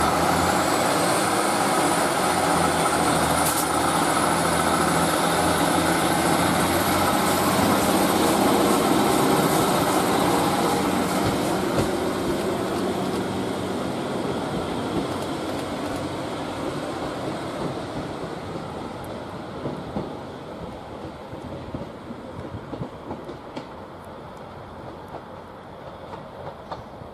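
East Midlands Trains diesel multiple unit moving away along the platform: engine and wheels on the rails, with a high whine that rises over the first several seconds. The sound then fades steadily as the train draws off.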